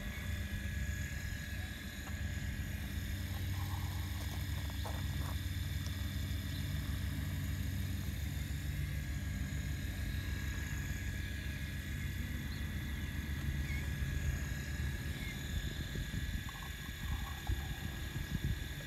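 Radio-controlled hydraulic excavator working: its pump motor runs steadily with a low, pulsing rumble under a constant high whine as the machine swings and digs.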